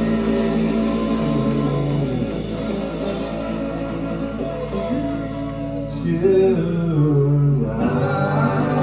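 Live rock band playing, with guitars and a singing voice over sustained chords. Just before the end the bass drops out, leaving held chords ringing.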